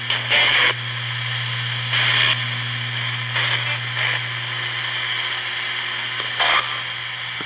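Spirit box, a handheld radio sweeping through stations, giving a steady low hum with several short bursts of static and choppy radio fragments a second or two apart.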